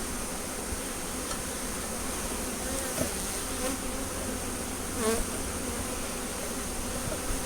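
Package of honeybees buzzing steadily around their new hive: a continuous low hum of many bees with a fainter higher overtone.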